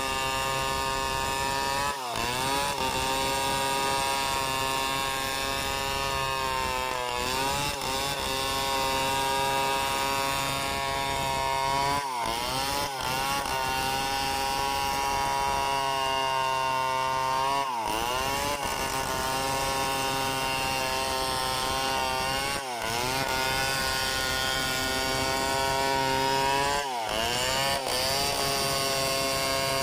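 Chainsaw running at high revs while cutting wood, a steady whine with brief dips roughly every five seconds.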